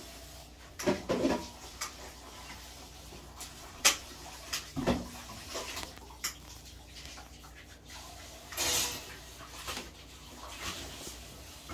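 Scattered clinks and knocks of dishes and utensils being handled, a handful of separate strikes, with a brief rush of noise about nine seconds in.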